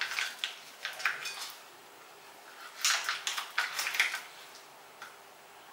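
Small spatula stirring and scraping face-mask gel inside a sachet: two bursts of quick scratchy clicks and crinkles, the second starting about three seconds in.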